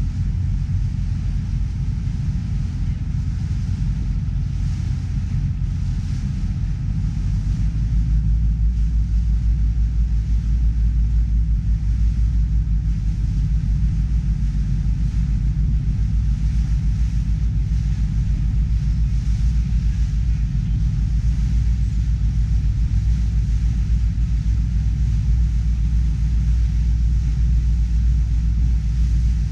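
Steady low rumble of a ferry under way, its engines running. The rumble grows heavier about eight seconds in.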